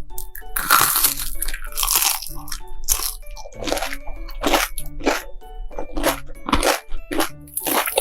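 A person biting and chewing crunchy food close to the microphone, a crisp crunch every half second to second, over background music.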